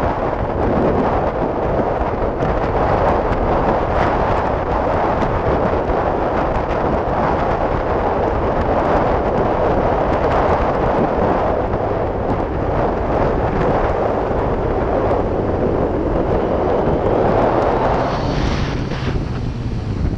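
Heavy wind buffeting on a GoPro Session's microphone on a moving Yamaha FZ-09 motorcycle: a loud, steady rushing rumble that all but buries the engine. Near the end the rush eases a little and a low, steady engine tone comes through.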